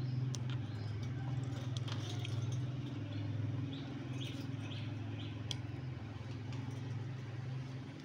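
Small clicks and rustles from rose-ringed parakeets picking seed off a cage floor, with a few faint short chirps, over a steady low hum.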